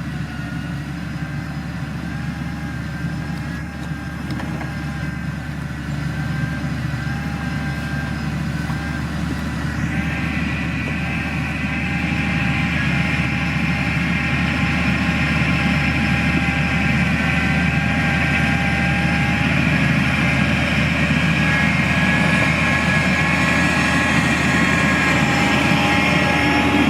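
Heavy construction machinery's engine running steadily and gradually getting louder. A higher whine joins about ten seconds in.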